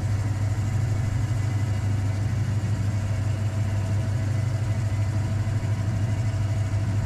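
Warco WMT 300 combination lathe-mill running, its motor and spindle turning the chuck with a steady low hum.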